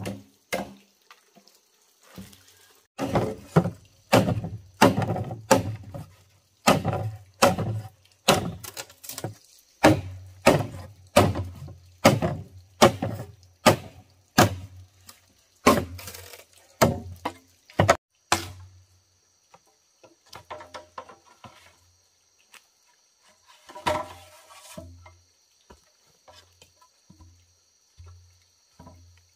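A blade chopping into wood or bamboo, one strong stroke about every second, each with a short ringing after it. The chopping stops a little past halfway and gives way to lighter, scattered taps.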